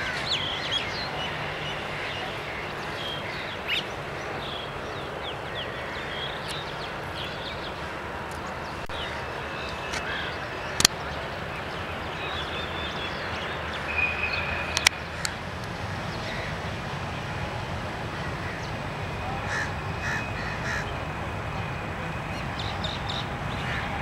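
Crows cawing now and then over a steady background of outdoor noise, with other short bird calls scattered through. A couple of sharp clicks, the loudest a little before the middle.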